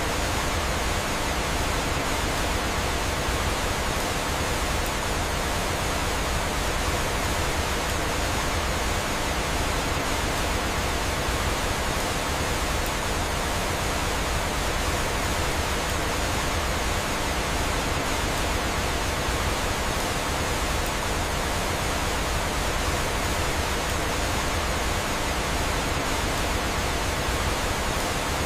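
Steady, even rushing of flowing water, like a waterfall, unchanging throughout.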